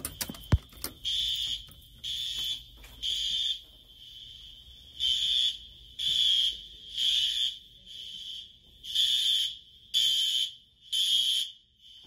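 A manual fire alarm pull station is pulled with a sharp click, and about a second later a System Sensor SpectrAlert Advance horn strobe sounds a loud, high-pitched horn in temporal-3 (code 3) pattern: three half-second blasts, a pause, then the same again, three groups in all.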